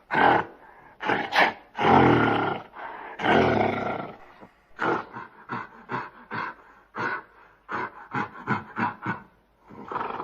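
Gorilla calling: a few rough roars in the first four seconds, then a run of short grunts at about two a second, and one more call near the end.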